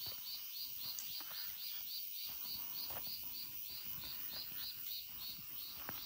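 A calling animal's high chirp repeated steadily about four times a second, with faint scattered taps underneath.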